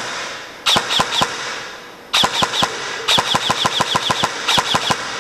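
Dytac LVOA M4 SBR airsoft electric gun (AEG) firing: a single shot at the start, then four bursts of rapid semi- or full-auto shots, the longest lasting about a second, each shot a sharp mechanical crack from the gearbox.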